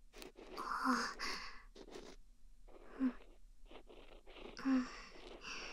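Bamboo ear pick scratching and rustling in the ear close to the microphone, in irregular crackly strokes, with three brief louder breathy sounds about a second, three seconds and nearly five seconds in.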